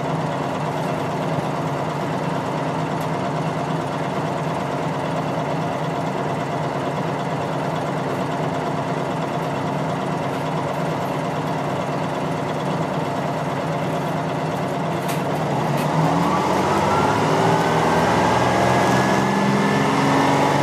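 GM New Look transit bus's Detroit Diesel 6V71 two-stroke diesel idling steadily while the bus stands still. About three-quarters of the way through, the engine revs up and its pitch climbs as the bus pulls away and accelerates.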